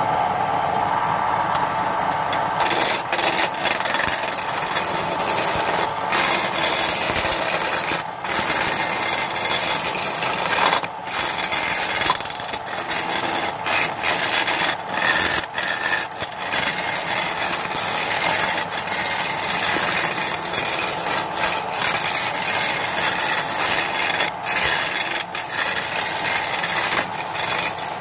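Wood lathe turning a sono (Indonesian rosewood) blank while a hand-held gouge cuts along it: a continuous rough scraping hiss of the tool on the spinning wood, broken by short dips where the tool lifts off.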